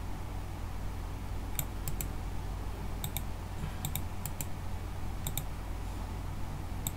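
Computer keyboard keystrokes: about nine sharp clicks, some single and some in quick pairs, over a low steady hum.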